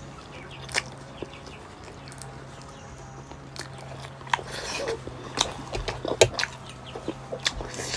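Close-up mouth sounds of eating fried pork momo: chewing with wet clicks and lip smacks, more frequent in the second half, over a faint steady low hum.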